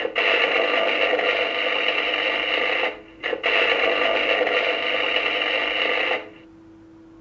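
Electric arc-welding sound effect from the model forge's electronic sound module, played through a small speaker: a crackling hiss for about three seconds, a short break, then a second stretch of about three seconds. A faint steady hum is left once it stops.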